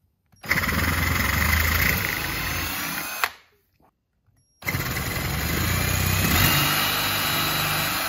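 Cordless drill with a spade bit boring through wood, widening pilot holes to full size. It runs twice: about three seconds, a short pause, then about three and a half seconds more.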